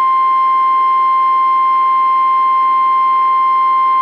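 NOAA Weather Radio's 1050 Hz warning alarm tone: one loud, steady, unbroken pitch, the signal that an emergency weather warning is being broadcast.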